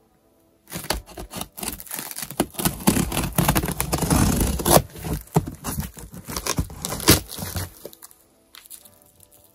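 Loudspeaker packaging being opened by hand: tape tearing, cardboard and wrapping scraping and crinkling, with many small knocks and clicks. It starts under a second in and dies down near the end.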